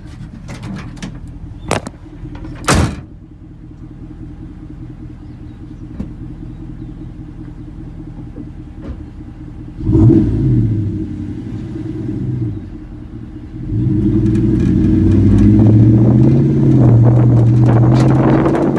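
Ram Hemi V8 exhaust through a Magnaflow 12288 muffler and 5-inch tips, idling with two sharp knocks near the start. About ten seconds in it revs up briefly, then from about fourteen seconds it accelerates hard, loud and steady.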